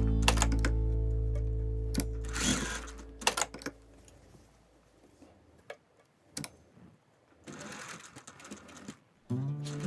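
Background music fading out, then a domestic sewing machine stitching in short runs, with separate clicks and knocks between them. Music comes back in near the end.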